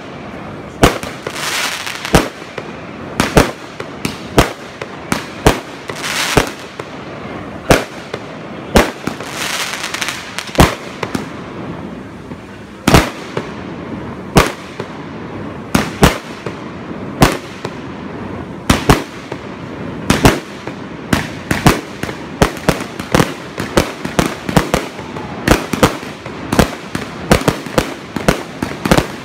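Fireworks display: aerial shells bursting in a string of sharp bangs, about one a second at first, then coming faster and closer together over the last several seconds.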